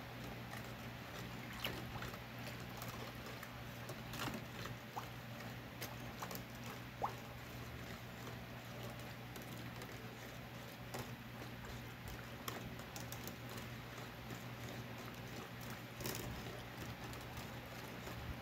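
Wooden stick stirring a thick sauce in a stainless steel pot: soft wet scraping with scattered light clicks and knocks against the pot, over a low steady hum.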